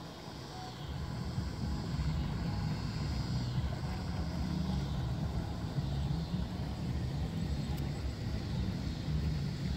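Outboard motor of a bass boat running as the boat cruises past, a steady low drone that grows louder about a second in.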